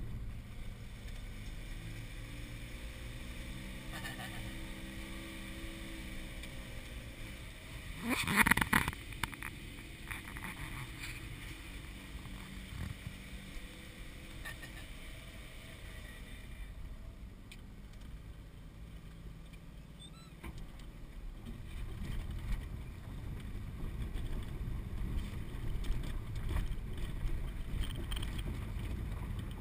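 Suzuki mini truck's engine running, heard from inside the cab, its pitch sagging a few seconds in, with one brief loud noise about eight seconds in. In the second half a louder low rumble with scattered knocks comes in as it rolls over a bumpy gravel track.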